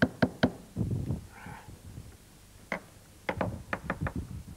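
Small hammer tapping brass tacks through a soaked goatskin into the wooden frame of a bodhrán, fixing the stretched skin to the rim. There are three quick taps at the start, one more a little before the end, and then a fast run of about seven light taps.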